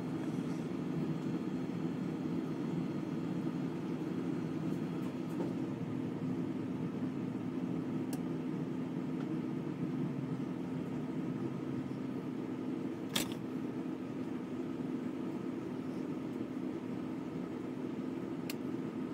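A steady low mechanical hum with a faint steady tone in it. A few small clicks sound over it, the sharpest about two-thirds of the way through.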